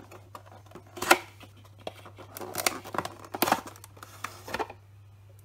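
Cardboard box handled by hand and a clear plastic case slid out of it: a sharp click about a second in, then scraping and rustling of plastic against cardboard, with a few more small clicks near the end.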